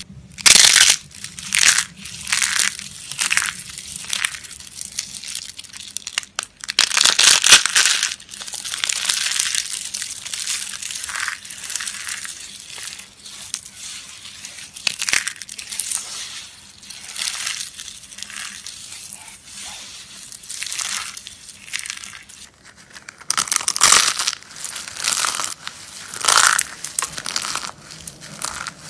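Dry soap being crushed and crumbling in a run of irregular crisp crunches, with a longer, louder crunch about seven seconds in.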